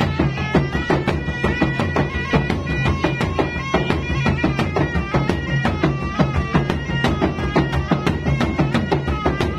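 Traditional gendang drum ensemble: two-headed barrel drums beaten with sticks in a fast, dense rhythm under a reedy shawm (puik-puik) playing a continuous, shifting melody.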